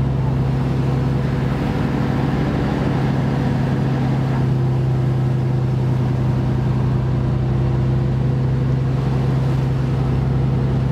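Motor vessel's engine running steadily under way, a constant low drone, with the rush of water along the hull.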